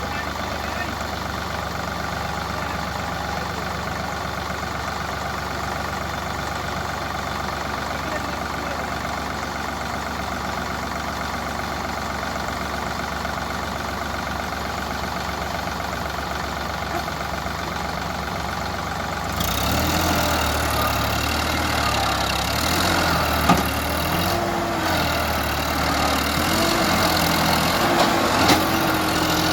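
JCB 3DX backhoe loader's diesel engine idling steadily. About twenty seconds in it grows louder and its pitch rises and falls again and again as it is revved under work, with a couple of sharp knocks.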